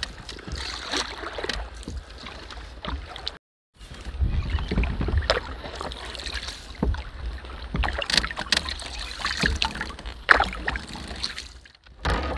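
A canoe being paddled: paddle blades dipping and water splashing and lapping along the hull, with scattered light knocks and a low rumble underneath. The sound cuts out completely for a moment about three and a half seconds in.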